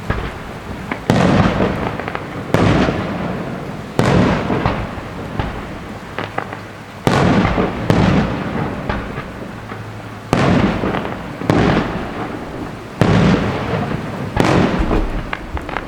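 Fireworks going off: about eight loud bangs at uneven intervals of one to three seconds, each followed by a long echoing rumble that dies away.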